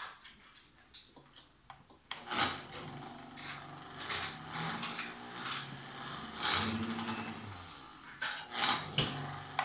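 Vitamix 7500 blender motor running with a Blendtec Rebel jar fitted. It starts about two seconds in, and its pitch rises and falls as the speed dial is turned.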